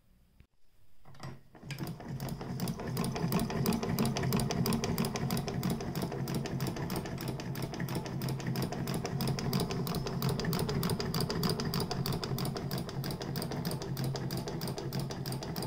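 Singer 12K hand-crank sewing machine running, an evenly paced mechanical clatter with a low hum. It starts about a second in, builds up quickly, then holds a steady rhythm.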